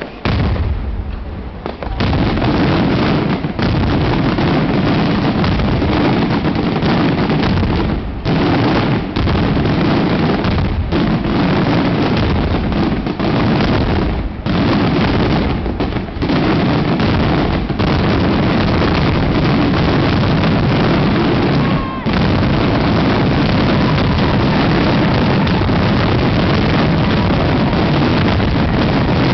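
Daytime fireworks by Vaccalluzzo: shells bursting overhead in a dense, almost unbroken barrage of explosions that builds within the first two seconds, with only a few brief lulls.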